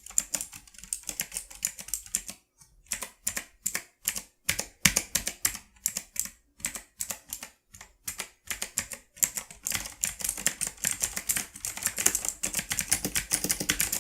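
Typing on an HP GK200 mechanical keyboard with blue switches: clicky, crispy keystrokes. The presses come in uneven runs with short pauses, then turn into fast, dense typing from about ten seconds in.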